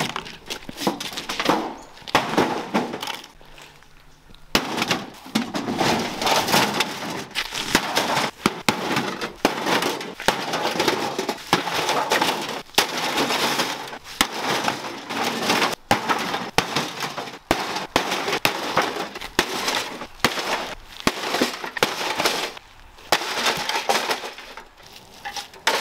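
Sledgehammer repeatedly smashing a scrap microwave oven: a long run of sheet-metal crashes and clanks with parts breaking and rattling. The blows come thick and fast from about four seconds in.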